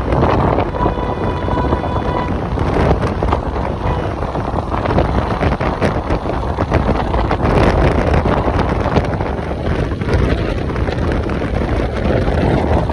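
Wind rushing over the microphone of a moving Suzuki two-wheeler, with steady road and traffic noise. A short steady tone sounds about half a second in and lasts a little over a second.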